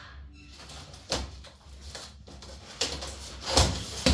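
Knocks and scraping as the boxed gas cooker and its packaging are handled: a few sharp knocks, the loudest about three and a half seconds in, with rubbing noise between them.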